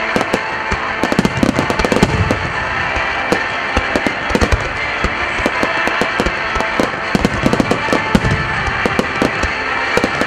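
Starmine fireworks barrage: shells launching and bursting in rapid succession, several sharp bangs a second, over music played in time with the show.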